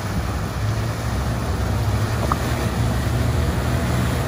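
Outboard motors running steadily at cruising speed, a low drone under the rush of wind and water past the hull.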